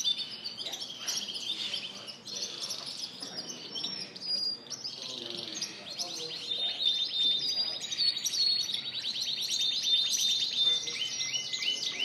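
Several canaries singing at once: a dense mix of chirps and warbles, with one long, fast rolling trill from about five seconds in, giving way near the end to a steadier held note.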